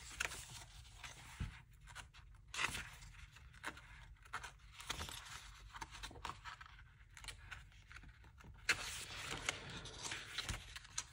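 Faint rustling and scraping of paper as the pages of a printed diary are turned and handled, in short scattered rustles with a longer stretch of rustling near the end.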